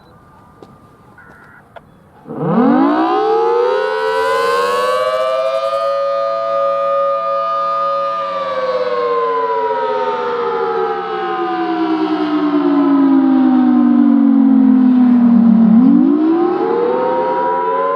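Federal Signal Thunderbolt 1000BT storm warning siren starting up about two seconds in. Its pitch winds up quickly to a steady high wail and holds, then slides slowly down and winds up again near the end.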